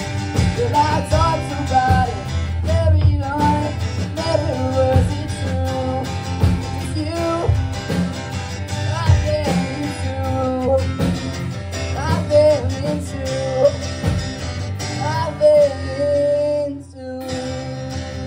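Live rock band playing: a voice singing over strummed acoustic guitar, electric bass and drums. About seventeen seconds in the song stops, leaving a final chord ringing out.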